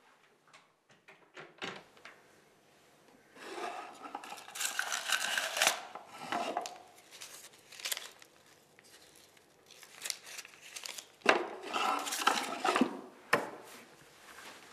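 Rummaging through a small wooden jewellery box: coins clinking and paper banknotes rustling. It comes in two bursts, about four seconds in and again near the end, with a few light clicks between.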